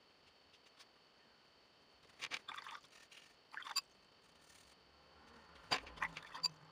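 Faint sounds of watercolour painting: a paintbrush scratching against the paper in two short rubs, about two and three and a half seconds in, then a few light clicks and taps near the end.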